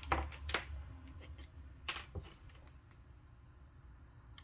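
A few light clicks and taps of plastic test probes and leads being handled, mostly in the first three seconds, then faint room noise with one more small click at the end.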